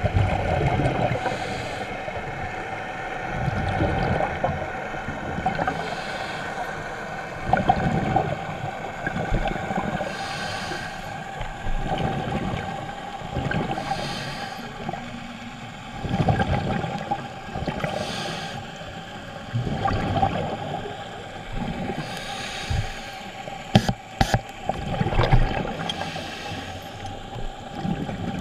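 Scuba breathing recorded underwater: regulator breaths and bubbling exhales about every two seconds, muffled through the camera housing, with a few sharp clicks near the end.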